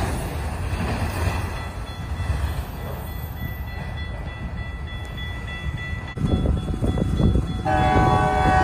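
A freight train of autorack cars rolls past and its rumble fades. A little after six seconds a low rumble picks up again, and near the end a train horn sounds: a chord of several steady tones.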